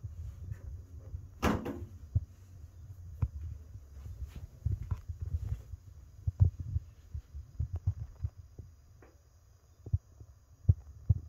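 Handling noise of a handheld phone being moved around a small room: irregular low thumps over a low hum. One louder rustling scrape comes about a second and a half in, and several sharper thumps come near the end.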